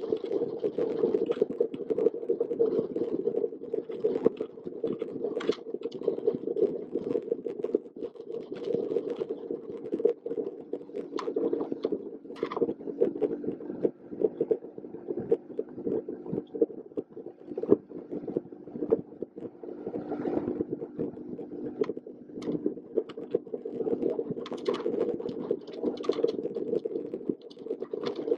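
Motorboat underway: a steady engine drone, with rapid irregular buffeting and knocks throughout.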